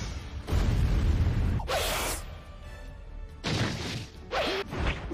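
Dramatic background music mixed with heavy booming and whooshing fight sound effects. The loudest, deepest boom comes from about half a second to two seconds in, followed by quieter passages with short sweeps.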